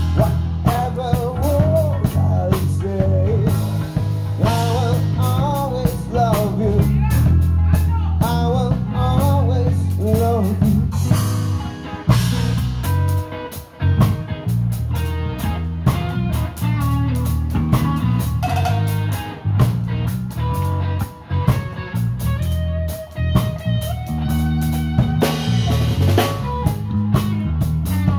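Live band playing blues-rock: electric guitar over bass and drum kit, with a wavering, bending lead line through roughly the first ten seconds.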